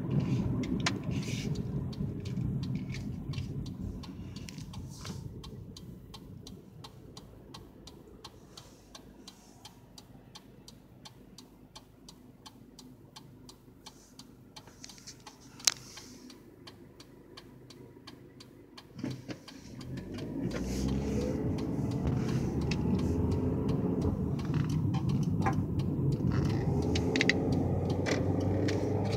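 A motor vehicle engine's low hum fades away over several seconds. After a quiet stretch with faint ticking and one sharp click, an engine sound rises again with its pitch gliding up and down, and keeps running.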